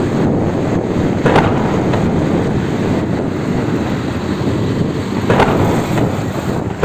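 Wind buffeting the microphone of a phone filmed from a moving motorcycle: a loud, steady low rumble with road noise. It surges briefly about a second in and again about five seconds in.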